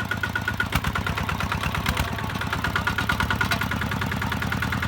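The single-cylinder diesel engine of a Kubota ZT-150 walking tractor runs steadily with a fast, even chug and a thin whine above it. A few sharp clacks come through, about a second apart.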